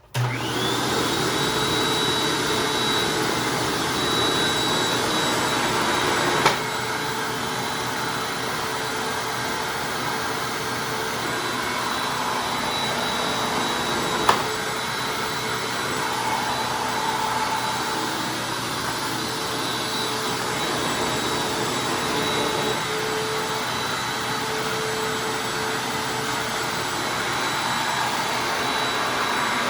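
Hoover Anniversary upright vacuum cleaner switched on, its motor spinning up to a steady high whine within the first second and running on. Two sharp clicks come through over it, one about six seconds in and one about fourteen seconds in.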